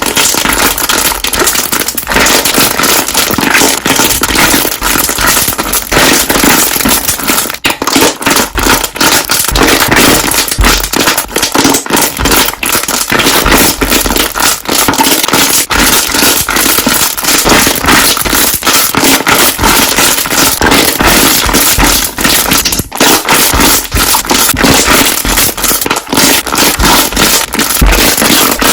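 Slime being squeezed and worked, its trapped air bubbles popping in a loud, dense, continuous crackle of rapid pops.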